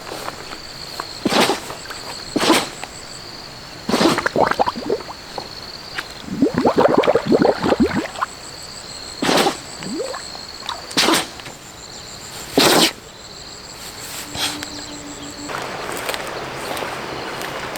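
Water splashing in sharp separate splashes every second or two, with a longer stretch of sloshing and dripping about halfway through; a thin steady high whine runs behind.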